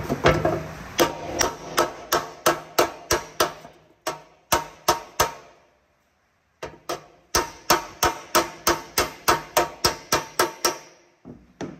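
Hammer striking a freshly gas-welded patch on a steel engine oil pan, about three quick blows a second, planishing the still-hot weld flat. The blows stop for about a second midway, then resume at the same pace.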